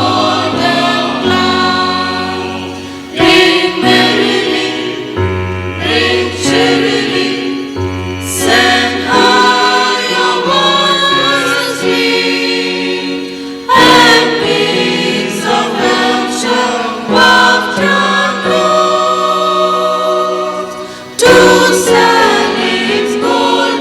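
Church choir singing a Christmas song over held bass notes from an accompanying instrument. Sudden loud accents come three times: about three seconds in, about fourteen seconds in and about twenty-one seconds in.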